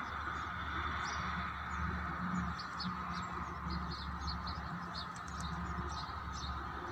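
Birds chirping: many short, high chirps, several a second, scattered over a steady background hum.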